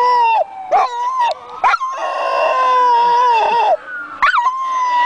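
Dog howling in a series of long held notes with short breaks between them, the longest drawn out for about a second and a half in the middle; the howling is the dog's response to a siren.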